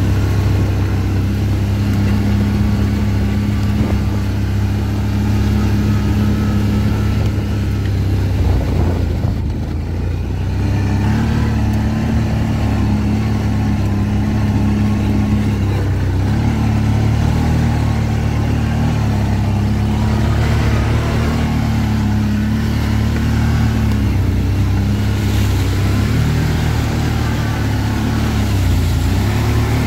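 ATV engine running under way, its note shifting up and down with the throttle several times, with a brief drop in level about ten seconds in.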